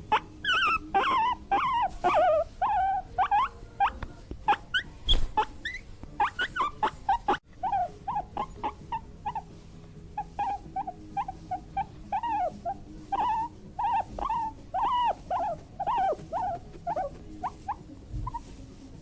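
A small animal's high-pitched squeaks and whines, many short arching calls in quick runs, with a brief break about seven and a half seconds in.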